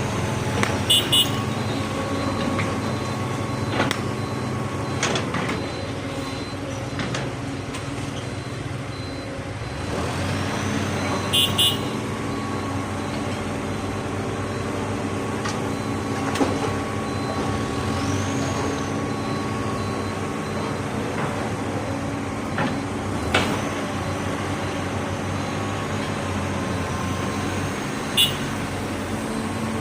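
Heavy diesel machinery running steadily, with a few sharp knocks or clanks along the way.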